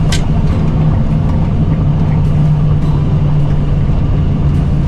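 Jet airliner rolling along the runway after touchdown, heard inside the cockpit: a steady loud rumble with a low hum, and a brief high chirp right at the start.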